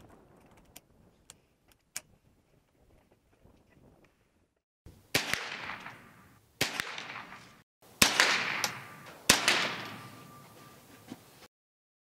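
A Ruger 10/22 rifle fitted with a TAC Hammer bull barrel, firing .22 LR at a range: about five sharp shots, one to one and a half seconds apart, each trailing off in an echo. Before the shooting there are a few faint clicks as the rifle is handled.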